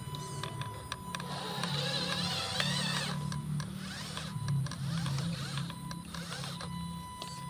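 Electric motor and gearbox of an RC dump truck running, a whine that rises and falls in pitch as the throttle changes, over a low hum.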